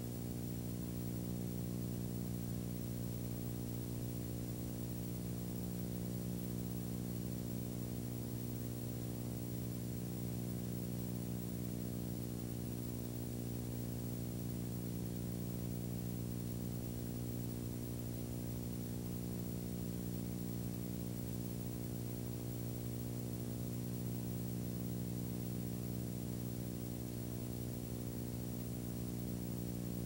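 Steady electrical hum with a buzzing stack of overtones and a faint hiss, unchanging throughout.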